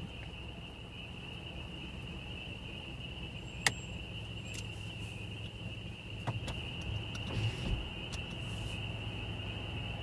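A steady high-pitched chorus, which the speaker calls cicadas, over a car's low road hum. A single sharp click sounds about a third of the way in.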